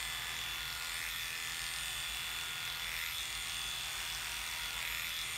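Electric dog grooming clippers with a very short number 10 blade, running steadily as they shave the dog's body coat close to the skin: a steady hum with a thin high whine.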